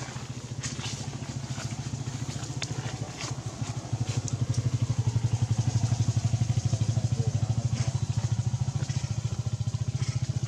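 Small motorcycle engine running steadily nearby with an even, fast low pulse, growing louder about four seconds in.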